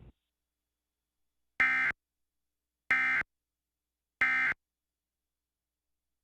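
Emergency Alert System end-of-message signal: three short digital data bursts, each about a third of a second long and roughly a second apart, sounding as a harsh buzzing chirp. This is the SAME 'NNNN' end-of-message code that closes the alert.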